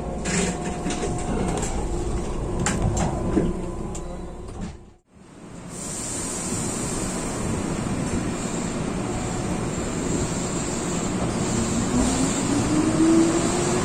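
Keihan electric train running, with a few clicks from the wheels and a steady running noise, fading out about five seconds in. After that the train noise returns, and a motor whine rises steadily in pitch as a train accelerates.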